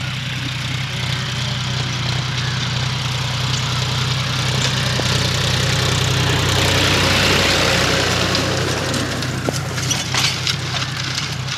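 John Deere 5050D tractor's three-cylinder diesel engine running steadily under load as it pulls a disc harrow through dry soil. The note grows louder as the tractor comes close, then eases off, with a burst of sharp rattles and clanks near the end as the harrow goes by.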